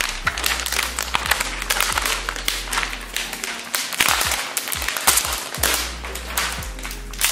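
Clear protective plastic film being peeled off an iMac's glass screen: a dense run of crackles and crinkles as the film pulls free from its glued corners.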